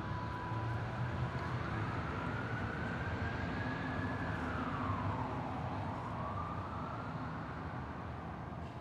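Police siren wailing slowly: it rises, drops about five seconds in, then climbs again, over a steady low rumble of traffic.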